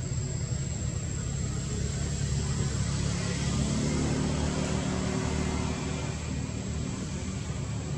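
A steady low engine rumble that swells in the middle and eases off near the end, with a thin steady high tone above it.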